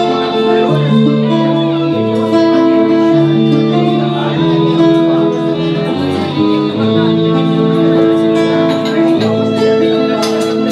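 Instrumental music playing a melody of held notes.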